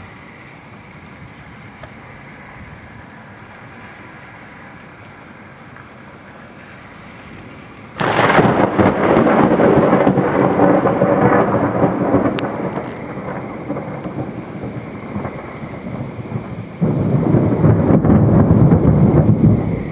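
Thunder in a thunderstorm. About eight seconds in, a sudden loud clap breaks over a steady background hiss and rumbles on for several seconds, fading slowly. Near the end a second sudden peal comes in, deeper and heavier.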